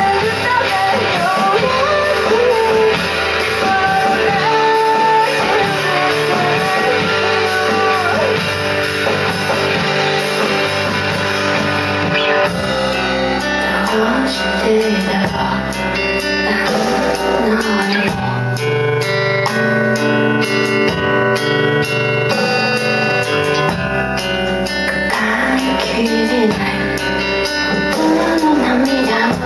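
A band playing rock music, with electric guitar and a singing voice. The arrangement changes about twelve seconds in.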